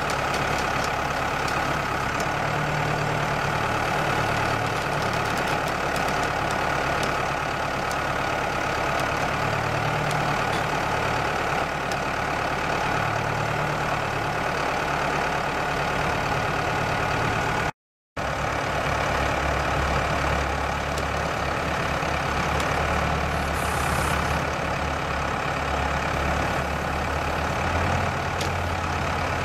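Tractor engine running steadily while it powers the hydraulic log crane on a forestry trailer. The sound cuts out for a moment about two-thirds of the way through, and the low engine tone is different afterwards.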